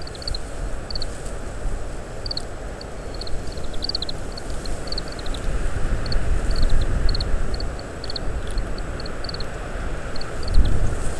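Oriental greenfinch giving its short, high call notes, repeated in quick clusters of two to four, over a heavy low rumble of wind on the microphone.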